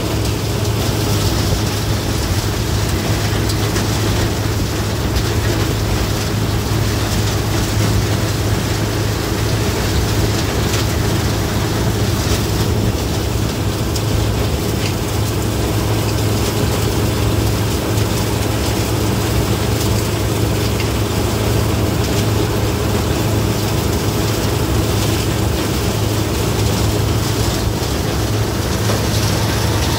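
A steady low hum under an even hiss, unchanging throughout, with a few faint clicks.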